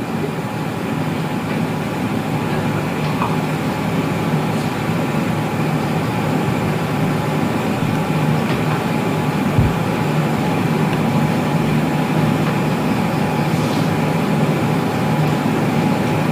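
Steady low mechanical drone of an engine running without change, with faint steady higher tones above it. There is a single short low thump about ten seconds in.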